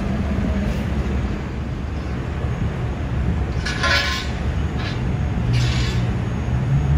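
Tow truck engine running at idle, a steady low rumble, with two short hisses about four and six seconds in. The engine note grows louder near the end.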